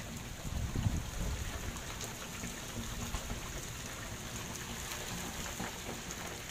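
Heavy rain falling steadily onto standing water on a flooded concrete balcony and waterlogged ground, with a brief low rumble about a second in.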